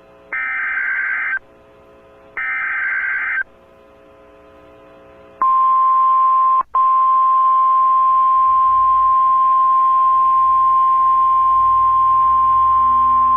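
Emergency Alert System header for a National Weather Service tornado warning: two harsh, warbling data bursts of about a second each, a second apart, then a steady single-pitch weather-radio attention tone of about 1050 Hz. The tone starts about five seconds in and breaks off for an instant about a second after it starts.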